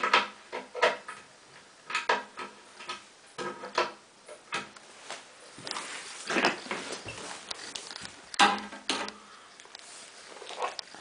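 Irregular knocks and clinks of flat-pack Ikea bed parts being handled and tapped during assembly, some with a short ringing tone; the loudest knock comes a little past the middle.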